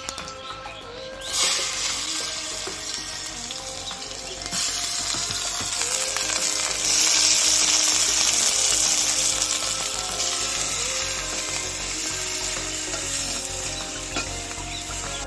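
Food frying in hot oil in a pan: a loud sizzle that starts about a second in and grows louder in steps, loudest near the middle.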